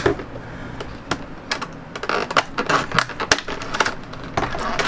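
Clear plastic packaging crinkling and rustling as it is handled and pulled off a toothbrush box, with irregular sharp crackles and clicks.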